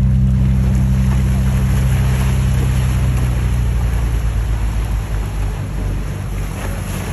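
Engines of a flybridge sportfishing boat running under way, a deep steady drone over the rush of its wake and churned water, fading as the boat draws away.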